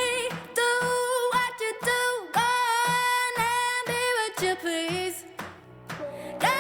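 Background music with a voice singing long held notes.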